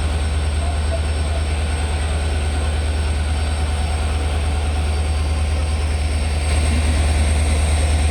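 WDP4D diesel locomotive engine running with a steady, deep hum, getting slightly louder about six and a half seconds in.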